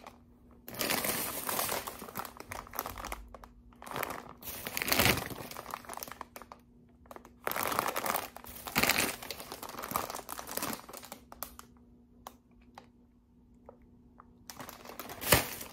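Plastic snack bags of mini donuts crinkling as they are picked up, held up and shuffled in the hands, in irregular bursts, going quiet for a few seconds near the end before one last sharp crinkle.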